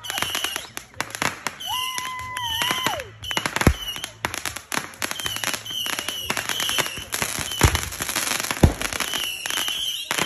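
Consumer fireworks going off: a rapid run of launch pops and crackles with several heavier booms. About two seconds in, a steady whistle holds for about a second and drops in pitch as it ends.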